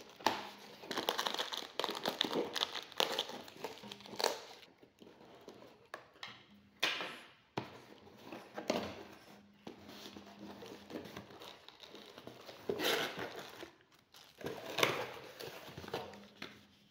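A cardboard parcel being opened by hand: packing tape and cardboard flaps rustling and tearing, and bubble wrap crinkling as the items inside are handled, in irregular bursts with a few sharper rips.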